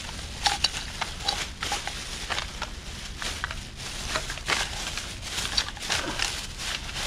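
Rummaging through trash by hand: irregular clicks, light clatter and rustling as items are picked up and shifted about.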